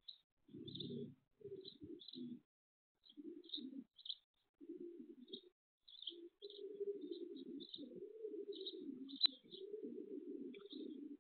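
Pigeons cooing, in short phrases at first and then almost without break, while small birds chirp in short high notes. A single sharp click comes about nine seconds in.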